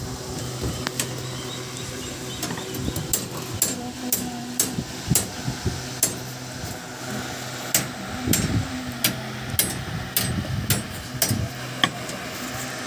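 Rebar being tied with steel binding wire and a hand tying hook: a run of sharp metallic clicks and ticks as the hook twists the wire against the bars, irregular, about one or two a second.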